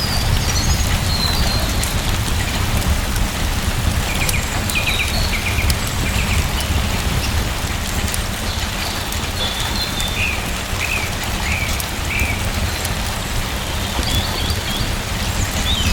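Steady rain with a deep low rumble and scattered sharp ticks, and a bird chirping in short notes now and then, in several quick runs.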